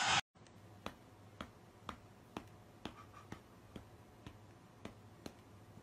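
A run of faint, sharp ticks, about two a second and slightly uneven, over very quiet room tone.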